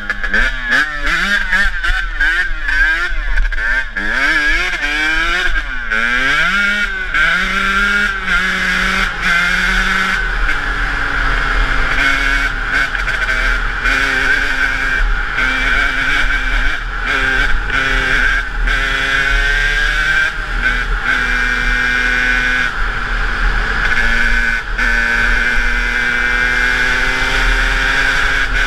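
KTM EXC 125 two-stroke single-cylinder enduro engine heard on board while riding: revs swing rapidly up and down for the first several seconds, then it pulls at steadier, higher revs with a few gear-change steps and slow rises in pitch.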